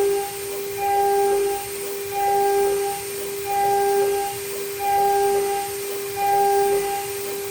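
Stepper motors of a DIY CNC machine singing in pure, flute-like tones as the axes move. A lower tone and one about an octave higher swell in turn in a steady cycle, about once every 1.3 seconds.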